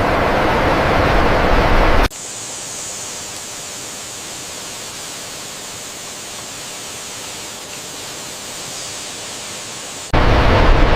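Steady rushing noise, loud and deep, that cuts off abruptly about two seconds in to a much quieter, thinner hiss with a bright high edge. About ten seconds in it cuts straight back to the loud rushing.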